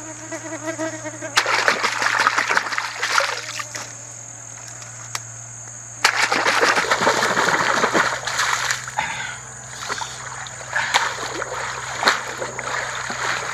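Stream water splashing as hands wash things in it, in two bouts of a few seconds each (one starting about a second in, one in the middle), with quieter trickling and dripping between and after.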